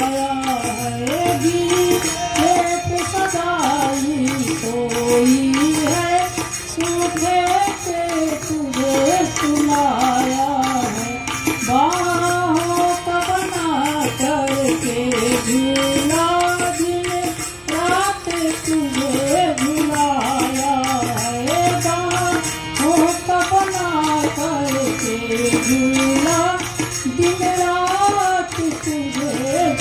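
A devotional song sung to a steady percussion beat; the melody glides up and down without a break.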